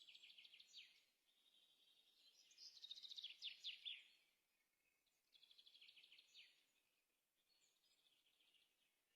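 Faint birdsong: a small bird sings short trilled phrases of about a second each, a few seconds apart, each ending in quick falling notes.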